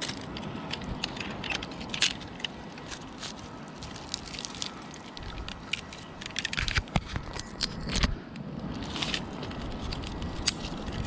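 Metal climbing hardware clinking and rope and pine bark scraping as a climber moves up the trunk: scattered sharp clicks and scrapes, several clustered around the middle of the stretch.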